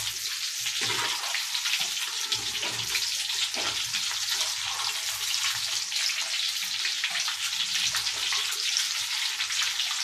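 Hot oil sizzling in a wok: a steady hiss with fine crackling running throughout.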